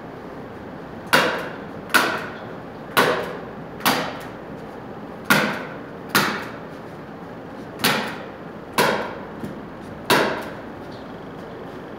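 A series of sharp knocks, nine in all, roughly one a second and often in pairs, each ringing briefly before it fades.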